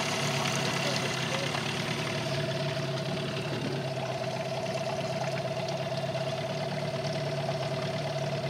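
Small outboard motor running at a steady speed, pushing the fishing boat across the lake.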